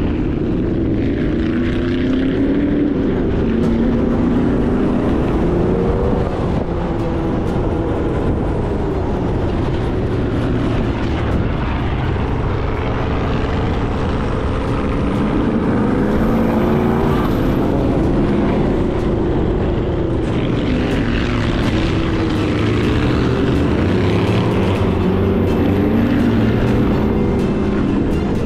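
Sand rail engine running hard over the dunes, its revs rising and falling again and again, under a constant rush of noise.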